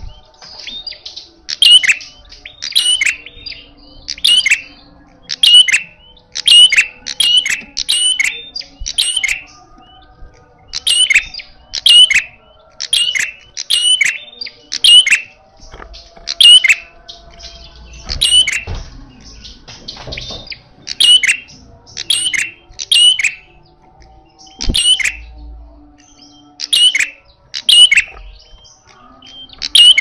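Caged red-headed prenjak calling loudly in its aggressive fighting style: sharp, down-slurred notes, often in pairs, repeated about once a second with a few short pauses.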